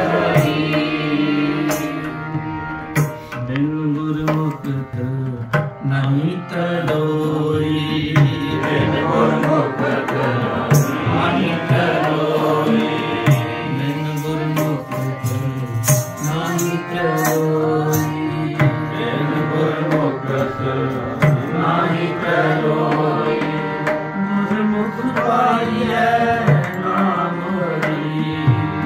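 Kirtan music: tabla drumming over sustained harmonium chords.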